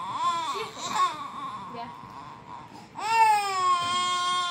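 Toddler crying: a few short wails, then a long, drawn-out, high-pitched wail starting about three seconds in.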